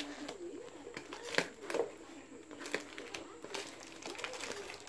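Plastic courier mailer crinkling and rustling as it is cut and pulled open by hand, in irregular crackles with a sharper crack about a second and a half in.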